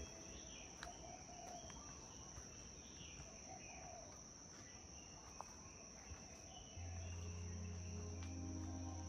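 Crickets trilling in one steady, faint, high-pitched drone, with a few short bird chirps scattered through it. Low, sustained music notes come in about seven seconds in.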